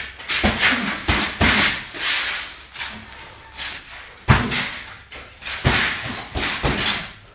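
Boxing gloves thudding and slapping irregularly as two boxers spar, with the sharpest blow about four seconds in.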